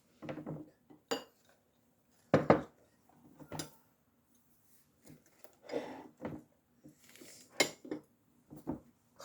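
Dishes and cutlery clinking and knocking together in a string of irregular, separate clatters, the loudest about two and a half seconds in.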